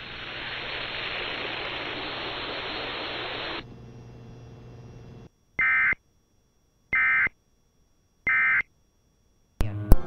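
Radio static hiss that fades out about three and a half seconds in, followed by three short bursts of warbling Emergency Alert System data tones, the end-of-message signal that closes the alert. A sharp click comes near the end.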